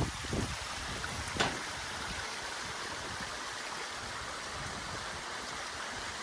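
Steady rush of running water, with a single short tap about a second and a half in.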